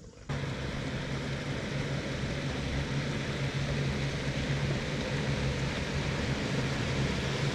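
Bass boat's outboard motor running at speed, a steady low drone under a heavy rush of wind and water noise. It starts abruptly.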